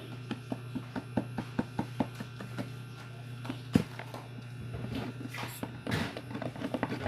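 Steady low electrical hum with a run of quick, even clicks, about four a second, a single louder knock a little past the middle, and a short rustle near the end.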